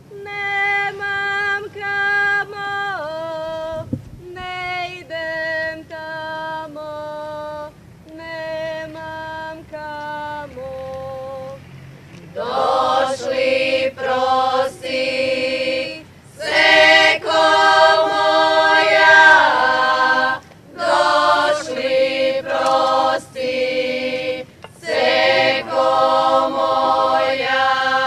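Women singing a traditional Croatian folk song without instruments: a single voice sings held phrases for the first dozen seconds, then a group of women's voices joins in, fuller and louder.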